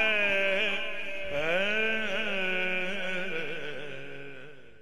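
A man singing the closing line of an Urdu manqabat. He draws the words out in long held notes with slow rises and falls in pitch, and his voice fades away near the end.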